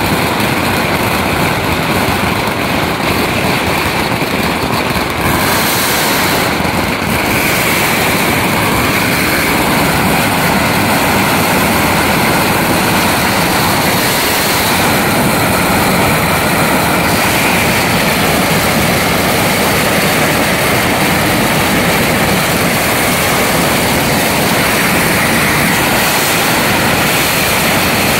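Pyrotechnics burning in a metal-frame cage, throwing sparks and smoke: a loud, steady rushing roar that keeps up without a break.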